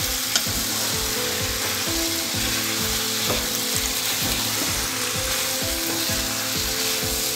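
Country chicken pieces and spice masala frying in oil in a wide nonstick pan, with a steady sizzle, while a spatula stirs them through. This is the dry-frying stage in oil alone, before any water goes in.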